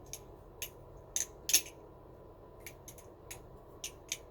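A balisong trainer with aluminium channel handles being flipped: about ten sharp metallic clicks at irregular spacing as the handles swing round and strike the blade's tang pins, the loudest about a third of the way in.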